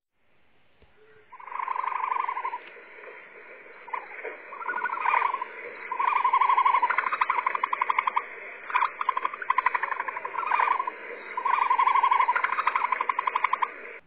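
An animal calling again and again: rapid pulsed, buzzing trills held at one steady pitch, in phrases of about a second, starting about a second in over a steady background hiss.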